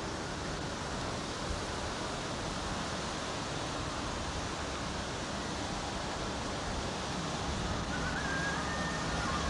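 Steady rushing noise of wind and surf, with wind rumbling on the microphone. Faint pitched tones come in near the end.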